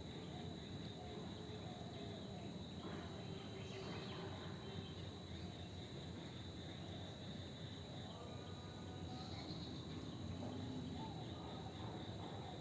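Faint outdoor nature ambience: a steady, unbroken high insect drone, with a few faint short calls now and then.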